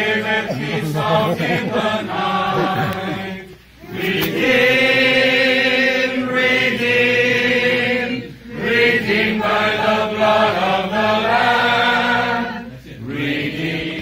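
Church congregation of men and women singing together, held sung notes in phrases of about four seconds with short breaks between them.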